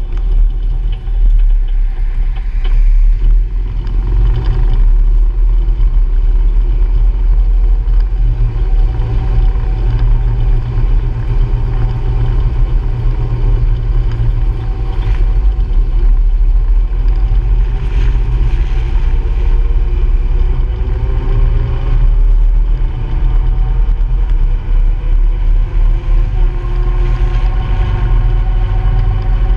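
Honda Pioneer 700-4 side-by-side's single-cylinder engine running at low speed with a heavy low rumble, its pitch rising and falling several times as it pulls away and is eased off.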